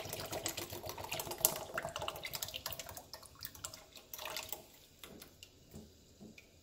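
Evaporated milk pouring from a can into a pot of cooked rice, glugging and splashing. It thins to a trickle and scattered drips over the last few seconds.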